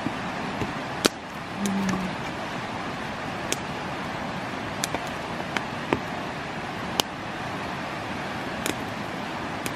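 Campfire of split kindling crackling: sharp, irregular pops every second or so over a steady hiss. A brief low hum sounds near two seconds in.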